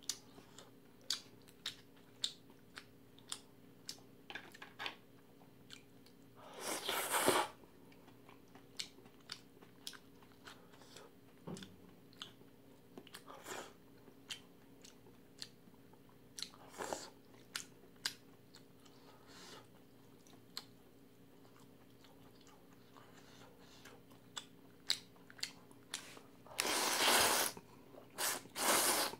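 Close-miked chewing with many short wet mouth clicks. Near the end comes a longer, louder slurp of jjamppong noodles, and a shorter noisy slurp-like stretch comes about seven seconds in.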